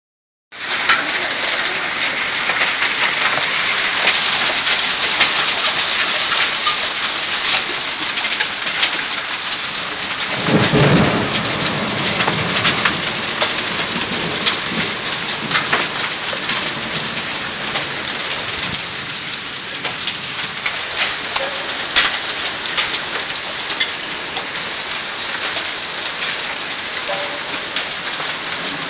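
Heavy rain falling steadily, with a low roll of thunder about a third of the way in. Scattered sharp taps of drops sound over the rain, the sharpest about two-thirds of the way through.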